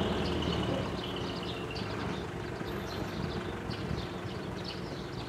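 Decorated truck's diesel engine running, louder in the first half-second and then settling into a lower steady rumble. Faint short high ticks are scattered over it.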